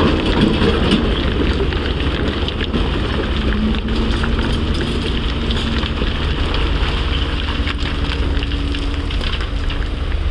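CAT 336 excavator at work loading rock and dirt: a steady engine rumble with a constant crackling, rattling noise over it and scattered sharp ticks.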